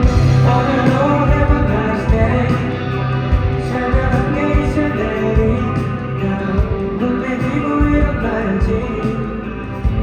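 Live band playing the instrumental opening of a pop-rock song, with drums, bass and electric guitar.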